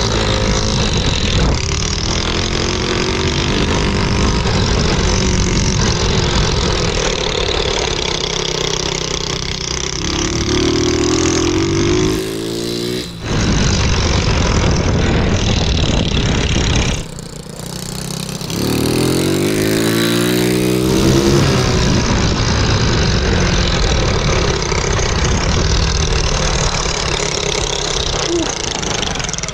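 A Honda Z50R mini bike with a 125cc Lifan clone single-cylinder four-stroke engine running under way. Its pitch rises twice as the throttle is opened, around ten seconds in and again around eighteen seconds in, and the engine drops off briefly just before each of those points. Wind rushes over the helmet-mounted microphone throughout.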